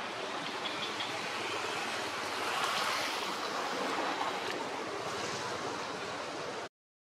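Steady outdoor rushing noise, like wind or flowing water, that cuts off suddenly to silence near the end.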